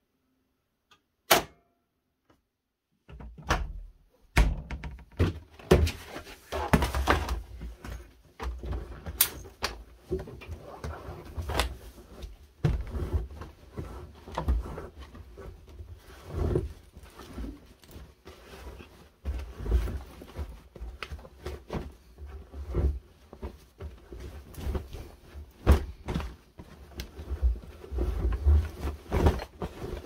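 A single sharp click, then a run of irregular dull thuds and rustling from wet laundry in a front-loading washing machine drum.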